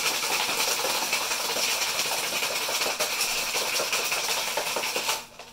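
Ice rattling hard inside a metal tin cocktail shaker being shaken vigorously, a dense continuous rattle that stops near the end.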